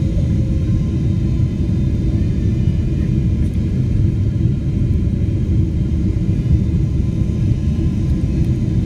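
Steady low rumble of an airliner's engines and airflow heard inside the passenger cabin during the descent to land.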